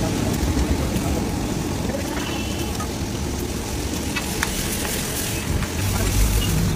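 Chickpea curry sizzling on a large hot iron griddle, with a few sharp clicks of a metal spatula as it is stirred, over a steady background of street traffic.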